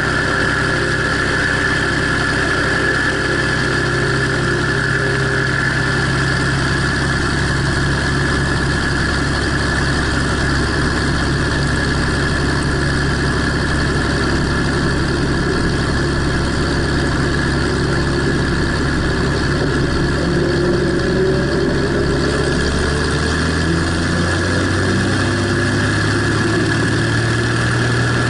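Single-engine light airplane's piston engine and propeller running steadily at low power while taxiing, heard from under the wing. In the last few seconds the engine note rises a little.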